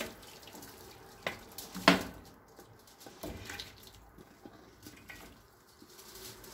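Broth and boiled mutton pouring and splashing out of a steel pot into a karahi, with sharp metal clinks where the pot knocks the pan, the loudest about two seconds in.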